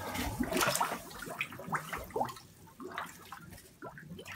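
Water splashing and gurgling in a sturgeon-spearing hole through the ice, with many quick dripping plinks. It is busiest in the first second and thins to scattered drips.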